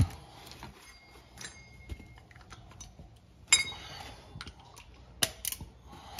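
Small parts and tools being handled: scattered light clicks and taps, with a louder clink that rings briefly about three and a half seconds in and another sharp click about five seconds in.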